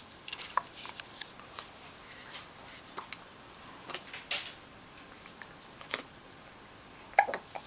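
A baby hiccuping: one short, sharp hiccup near the end, after a few seconds of soft scattered clicks and small noises.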